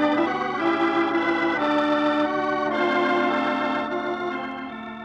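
Organ music bridge between scenes of a radio drama: a few sustained chords, changing every second or so, that fade toward the end.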